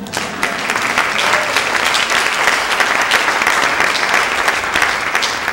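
Audience applauding loudly in a hall. It starts suddenly at a punchline and runs steadily, easing off near the end.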